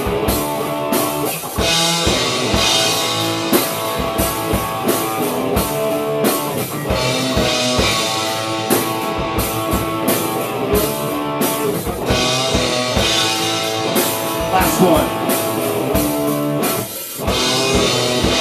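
Rock band rehearsing live: electric guitar and drum kit playing an instrumental passage, with steady drum hits and repeated cymbal crashes.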